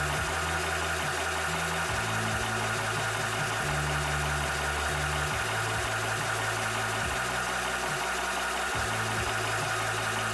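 Cobra 300 bar (4500 psi) PCP high-pressure air compressor running steadily while pumping, a constant mechanical hum with a steady mid-pitched whine. Underneath, low tones shift between a few pitches every second or so.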